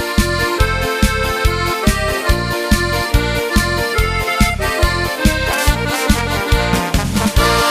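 Instrumental bandinha-style music led by accordion over a steady, bouncing bass beat of about four strokes a second.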